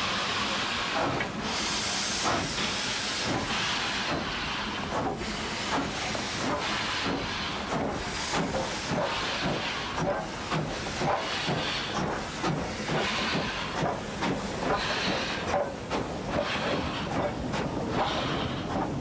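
Ex-Canadian War Department CWD-class 2-8-2 steam locomotive, oil-fired, starting its train away: a beat of exhaust chuffs that quickens as it picks up speed, over a steady hiss of steam from the cylinders.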